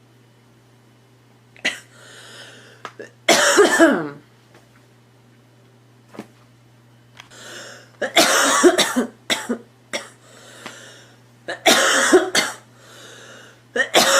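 A girl coughing in four fits of several coughs each, with breaths heard between the fits.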